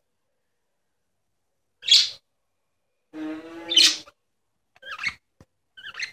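Budgerigar chirping: one sharp chirp about two seconds in, a longer call a second later that ends in a loud chirp, then a few softer chirps near the end.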